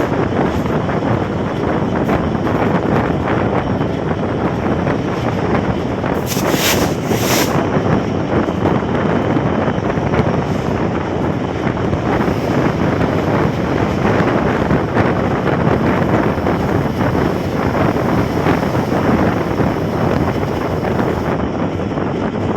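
Fast-moving Nilsagar Express passenger train: a steady rush of wind buffeting the microphone over the running rumble of the train, with a brief high hiss about six seconds in.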